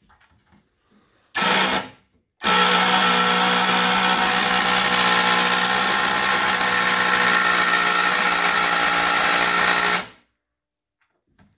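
Electric drill working at a screw in a cast iron coffin lid: a short burst, then about eight seconds of steady running before it cuts off. The screw is stuck.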